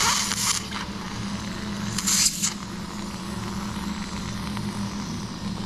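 Surgical suction tip drawing fluid from an open wound in two short hissing bursts about two seconds apart, over a steady low hum.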